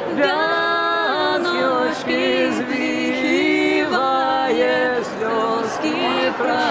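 Several voices singing a Belarusian song together, unaccompanied, moving through long held notes.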